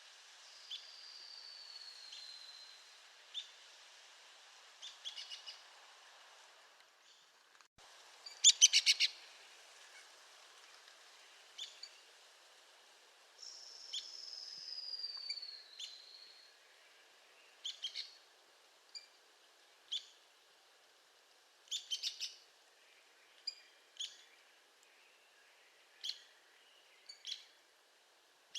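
Arizona woodpecker calling: short, sharp single call notes scattered through, and a loud, rapid rattle of notes about a third of the way in. Two long, falling whistles, one near the start and one midway, are heard as well.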